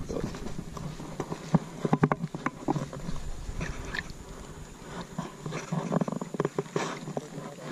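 Water splashing in irregular bursts as a largemouth bass, held by the lip in shallow water, is let go and kicks its tail.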